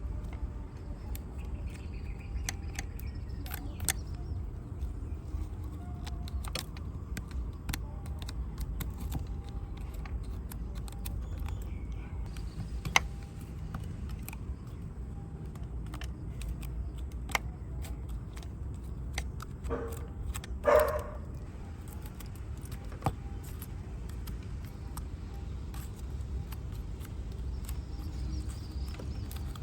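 Scattered small clicks and taps of a 1:14 die-cast toy motorcycle being handled and worked on, over a steady low rumble, with one brief louder sound about two-thirds of the way through.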